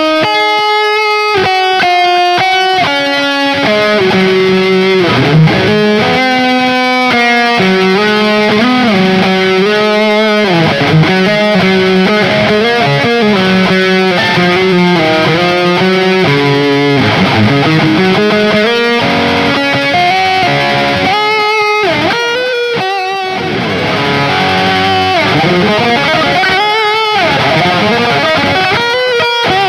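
Electric guitar with Ibanez STD C1/C2 humbucker pickups (Ibanez Gio GRGRS22FM) played through an amplifier: a run of changing notes and melodic lines with string bends, demonstrating the tone of these stock pickups.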